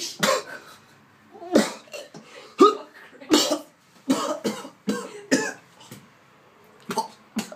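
A man coughing in a fit of short, harsh coughs, about ten in irregular clusters, with a pause before two last ones near the end. The fit comes on just as he sniffs the food he was asked to smell.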